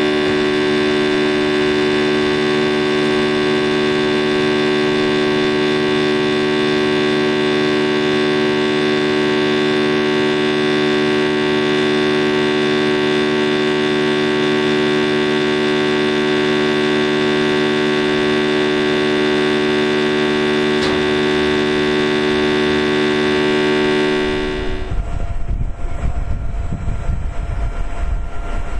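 Stationary electric wood crusher (11 kW, 400 V motor) running empty with nothing fed in: a loud, steady hum with a whine in it. About 24 seconds in the hum breaks off abruptly, leaving an uneven low rumbling noise.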